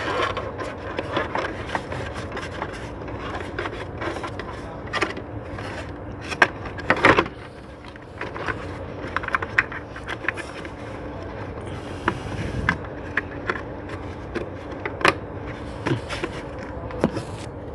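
Plastic engine cover being fitted back onto the engine by hand: scattered clicks, knocks and scraping as it is seated, with a few louder knocks partway through.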